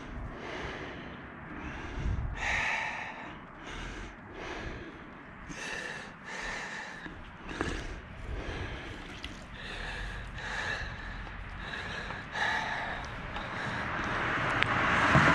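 A man breathing heavily, about one breath a second, from the effort of hauling a magnet-fishing rope in hand over hand. A rush of noise swells up near the end.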